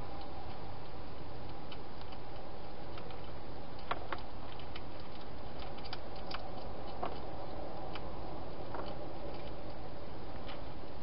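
European hedgehog eating from a bowl inside a plastic feeding box: irregular small clicks and crunches of chewing over a steady hiss.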